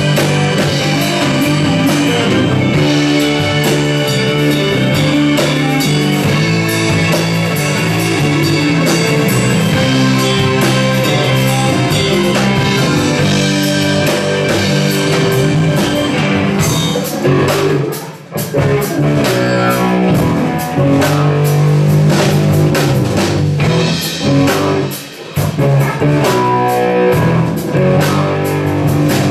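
Live rock band playing: electric guitars, bass guitar and drum kit. The band drops out for a moment twice near the end of the passage.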